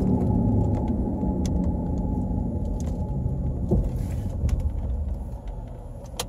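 Growling rumble of a badly worn front wheel bearing on a 2007 Pontiac Torrent, heard from inside the moving car together with road noise. It gets quieter about five seconds in.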